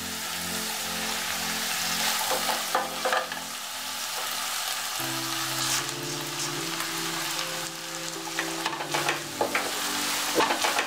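Vegetables sizzling in oil in a nonstick pan while a wooden spatula stirs them, with scattered scrapes and taps against the pan; about halfway through, flattened rice (poha) is tipped in and turned through.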